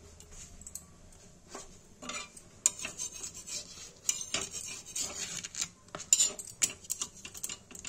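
Metal tongs clicking and scraping against a tawa griddle as a papad is pressed and turned while it roasts. The quick clicks and scrapes start about two seconds in and keep coming, irregularly, until near the end.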